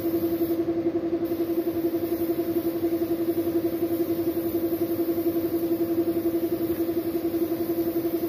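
Air compressor running steadily with a pitched hum and a rapid, even pulsing, feeding a paint spray gun whose faint air hiss stops for about half a second near the start, then resumes.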